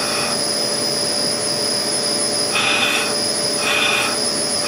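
High-speed 400 Hz water-cooled CNC spindle running on a VFD while being braked, which loads it and draws more current: a steady whine over a hiss, its higher tone dropping out and coming back a couple of times.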